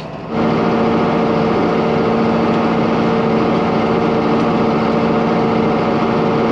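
John Deere tractor's diesel engine running steadily, heard loud from outside the cab beside the hood and stacks: an even drone with a constant pitch that cuts in abruptly just after the start.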